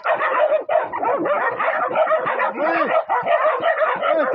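Several hunting dogs barking and yelping at once in a continuous, overlapping chorus: the pack baying at a cornered collared peccary.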